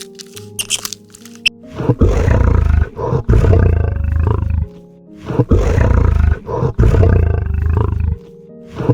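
A large animal's roaring calls, twice, each lasting about three seconds, loud and deep, over background music.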